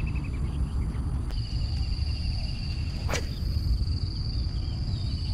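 Insects trilling, with a steady high buzz that sets in about a second in and a fainter pulsing trill beneath it, over a low rumble of wind on the microphone. A single sharp click sounds a little past the middle.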